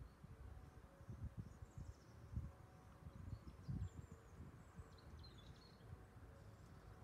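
Quiet outdoor ambience: irregular low rumbles on the microphone, with a few faint bird chirps in the background.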